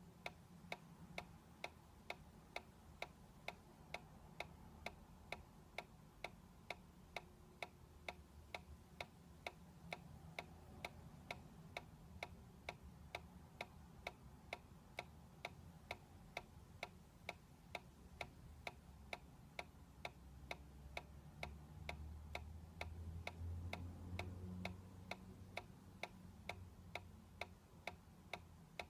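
Quiet, steady mechanical ticking, about two ticks a second, with a low rumble swelling in the background for a few seconds near the end.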